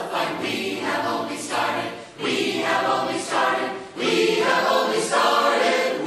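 Choir singing, in three phrases with short breaks between them about two and four seconds in.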